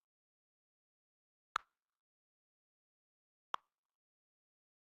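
Two short, sharp clicks about two seconds apart against digital silence.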